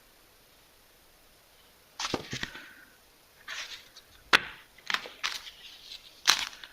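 MRE packaging being handled: crinkling and rustling of plastic ration pouches and wrappers, with a few sharp taps as items are set down. It starts about two seconds in.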